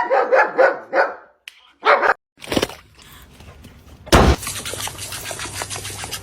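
A dog barking in a fast run of short barks during the first second. A few separate short noises follow, then a loud sudden bang about four seconds in, with steady noise after it that cuts off abruptly.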